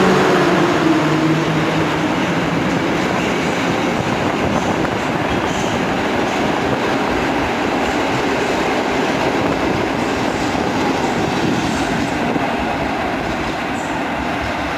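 Intercity passenger carriages rolling past at low speed as the train pulls out: a steady rumble of wheels on rails that slowly fades. The EP07 electric locomotive's hum dies away in the first couple of seconds.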